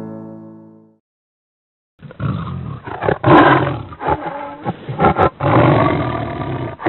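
A piano chord fades away in the first second. After a moment of silence, a tiger roars and growls in several surges, a dull-toned sound effect.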